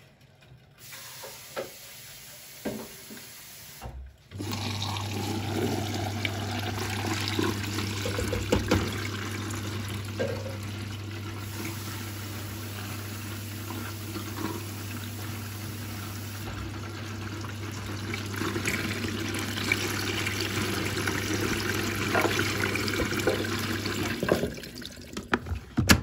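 Siemens front-loading washing machine filling: water rushes in through the detergent drawer into the drum, over the steady hum of the inlet valve. It starts about 4 seconds in and cuts off about 2 seconds before the end, after a few light knocks at the start.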